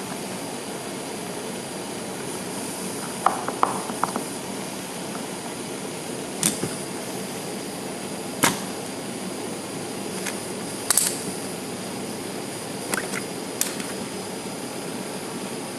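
Propane torch running with a steady rushing hiss while a paper-clip staple is heated for hot-stapling plastic, with several sharp metal clicks and taps of the wire and tools, a small cluster about three seconds in and single ones later.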